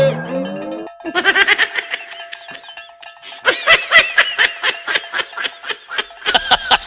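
High-pitched laughter. Softer at first, then a quick run of short "ha" bursts at about four a second from the middle on.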